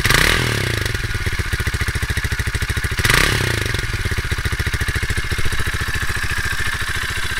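Rusi Classic 250i's oil-cooled 250cc single-cylinder fuel-injected engine idling through its stock exhaust with a steady beat. It is blipped twice: a brief rev right at the start and another about three seconds in.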